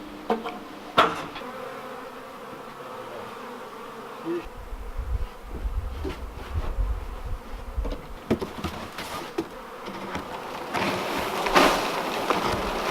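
A swarm of honeybees buzzing continuously, growing louder and denser near the end. A sharp knock comes about a second in.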